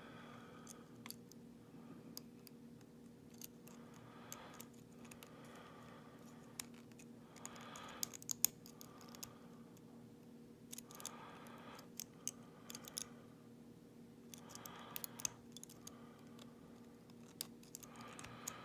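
Lock pick and tension wrench working the pin tumblers of a Schlage padlock: faint, irregular small metallic clicks and scratches as the pins are probed and set, busiest a little before the middle.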